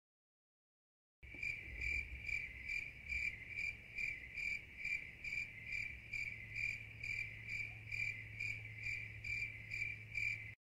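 Insect chirping, like a cricket: an even, high-pitched chirp repeated about two and a half times a second over a low steady hum. It starts and stops abruptly.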